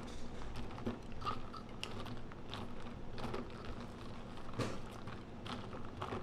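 Ice cubes clattering against each other and the plastic cup as a drinking straw stirs an iced latte, a quick irregular run of crunchy clicks.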